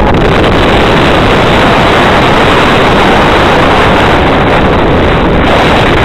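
Loud, steady roar of wind buffeting the microphone mixed with engine noise, from a car moving on the freeway as a landing jet airliner passes low overhead.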